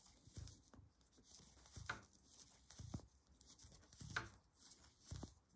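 Faint, irregular soft clicks and rustling from metal knitting needles and yarn as stitches are purled one after another.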